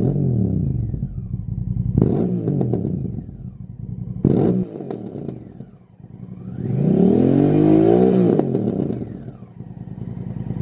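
Honda CRF1000 Africa Twin's parallel-twin engine revved at standstill through a Lextek RP1 aftermarket silencer. Three quick throttle blips about two seconds apart, each falling straight back to idle, then a longer rev that climbs and is held for about two seconds before dropping off.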